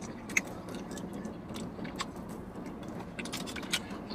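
Eating sounds: scattered faint clicks and smacks of chewing fried chicken wings and licking fingers, over a low steady hum.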